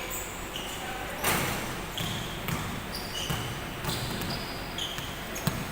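Basketball play: a ball bouncing on the court and short squeaks of sneakers, with a sharp thud about a second in.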